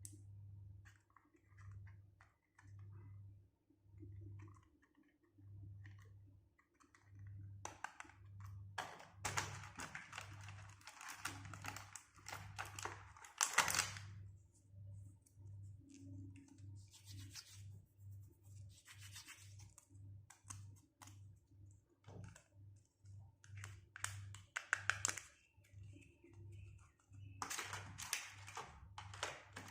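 Crinkling, scratching and tearing of plastic toy packaging as it is handled and opened, in several spells of a few seconds each. A soft low pulse repeats about every half-second underneath.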